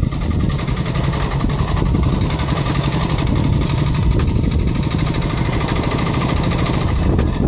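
Honda XR200 single-cylinder four-stroke motorcycle engine running steadily while cruising on the road, heard from the rider's seat.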